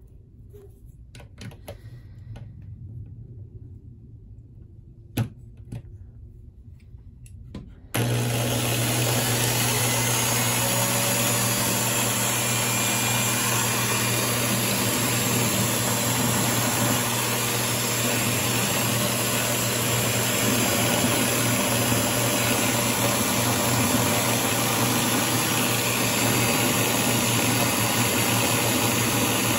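A few light clicks of a bolt being fitted into a keyed drill chuck. Then, about eight seconds in, a power drill starts suddenly and runs steadily, spinning the bolt while a flat file is held against its head to file it down.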